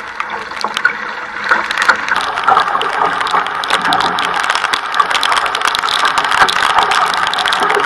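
Water rushing and splashing along an outrigger canoe's hull as it runs downwind through choppy waves, a steady loud wash, with many sharp ticks of water drops striking the camera.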